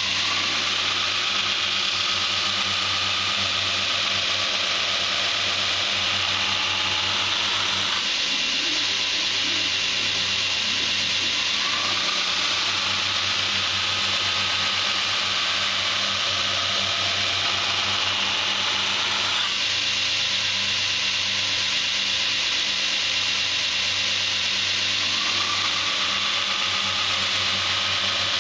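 Belt grinder running steadily, its motor humming under the hiss of D2 tool steel being ground against the abrasive belt. The grinding note shifts every few seconds as the blade's pressure or position on the belt changes.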